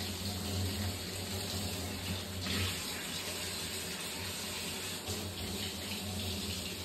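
Steady noise of running water, with a low hum underneath.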